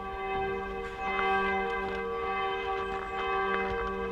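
Church bells ringing steadily, several bells blending into one sustained chord. Over them come a few faint clicks as a tyre casing is pressed into a bicycle rim.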